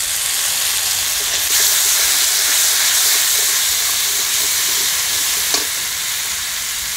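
Spices sizzling in hot oil in a metal kadai as they are fried: ground cumin and coriander with whole spices and dried chillies, stirred with a metal spatula. The sizzle gets louder about a second and a half in, and a single sharp tap comes near the end.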